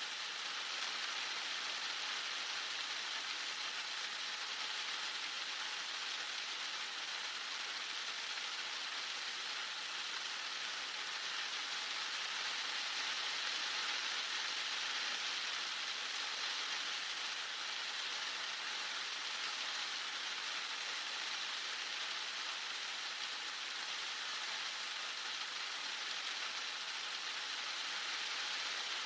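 Heavy rain falling steadily in an even, unbroken hiss.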